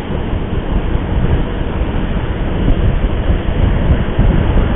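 Steady, loud wind and road noise from a vehicle in motion, heaviest at the low end, with no distinct events.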